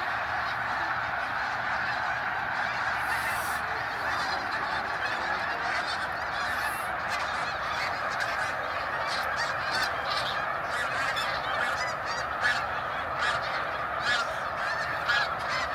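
A huge flock of snow geese calling together: a dense, steady din of overlapping nasal honks, with single nearer calls standing out now and then in the second half.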